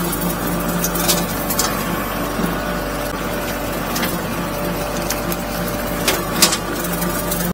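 Bobcat CT2025 compact tractor's diesel engine running steadily under work, with a few short sharp knocks or snaps, the loudest near the end.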